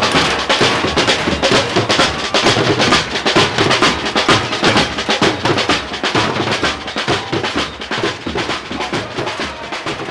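Street protest drum band playing: snare and bass drums in a dense, driving rhythm, gradually fading out near the end.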